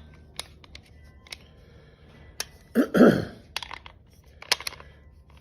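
Scattered light clicks and taps of plastic and metal parts being handled while a small-engine recoil starter is reassembled, with one louder, short sound about three seconds in whose pitch falls.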